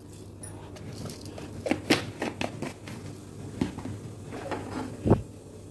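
Cumin seeds crackling in hot oil in a steel pressure cooker for a tempering: irregular small pops and crackles, with one louder knock about five seconds in.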